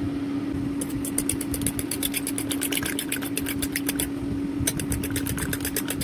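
Eggs being beaten by hand in a ceramic bowl: the utensil clicks rapidly against the bowl, about eight strokes a second, in two runs with a short pause about four seconds in. A steady low hum runs underneath.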